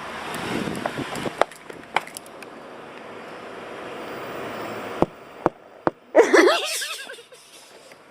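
A steady rushing noise with a few sharp clicks, then a short, loud cry from a person's voice about six seconds in.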